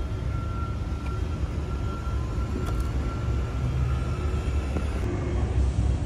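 Steady low background rumble with a faint, thin high whine over it that fades out about four and a half seconds in.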